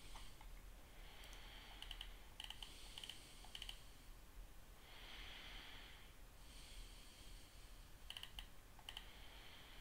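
Faint clicking at a computer: a few short clusters of clicks about a second in, around two and a half to three and a half seconds, and again near eight and nine seconds, with a soft hiss around five seconds in.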